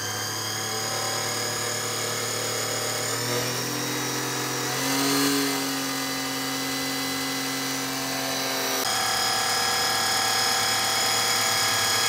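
Oil burner's motor-driven fuel pump running steadily with a mechanical hum. Its tone changes about three seconds in and again about nine seconds in as the pump pressure is turned up.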